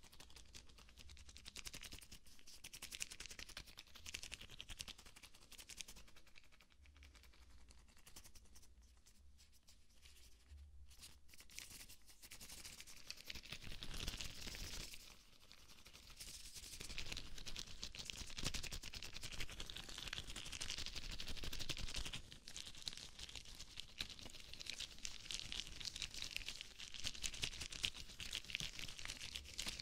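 Rubber gloves rubbing and crinkling close to a binaural microphone, making a dense crackling rustle. It is softer for a few seconds about a third of the way in, then louder through the second half.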